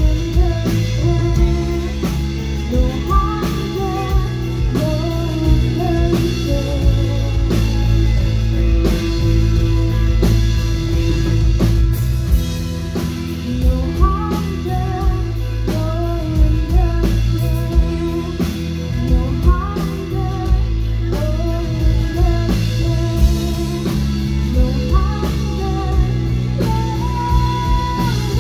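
Live rock band playing a song: a singer's melody over guitar, bass and drum kit, with the drums striking regularly.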